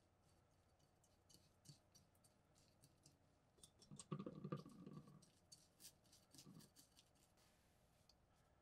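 Faint scratching and light clicks of a small paint brush working black coating onto a steel knife blade on a paper shop towel, with a louder knock and rustle about halfway through.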